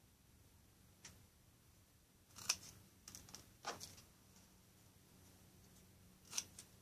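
Metal hand snips cutting through a thin wooden craft stick, a few short sharp snaps as the pieces are cut off, the loudest about two and a half seconds in.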